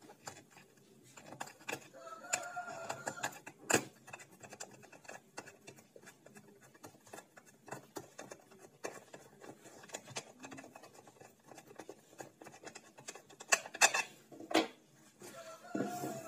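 Handling noise from unboxing an action camera: scattered light plastic clicks and rubbing as the camera in its clear plastic waterproof housing is worked out of its packaging tray, with a sharper click about four seconds in and a few more near the end.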